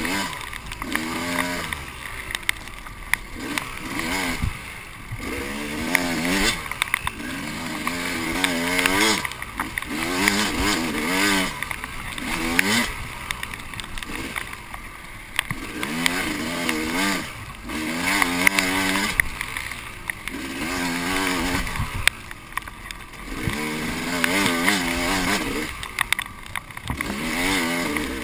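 KTM 300 EXC two-stroke dirt bike engine under way, revving up and falling back over and over as the throttle is worked, a rise and fall every second or two. Sharp knocks from the bike over the rough ground come through now and then.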